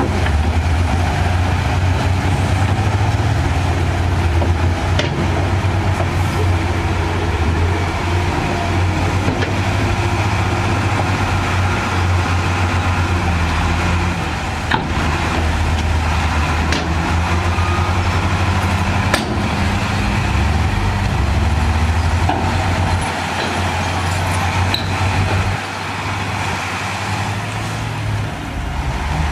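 Diesel engines of heavy earthmoving machines, such as a bulldozer and dump trucks, running with a steady low drone, with a few sharp knocks. The engine sound eases off a little near the end.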